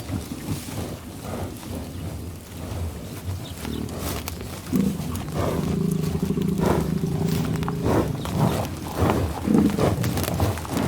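A cow mooing: one long, steady moo of about three seconds near the middle, with lower grunting and rustling sounds before and after it.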